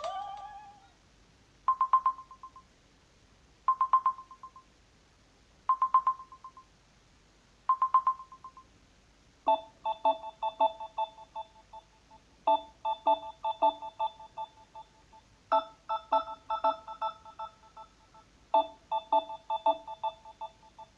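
Samsung Galaxy A12 phone ringtone playing. A previous tone fades out at the start. Then come four short electronic blips about two seconds apart, followed by a short multi-note melody that repeats about every three seconds.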